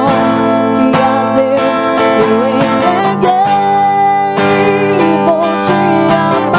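A woman singing a slow love song while strumming chords on a cutaway acoustic guitar.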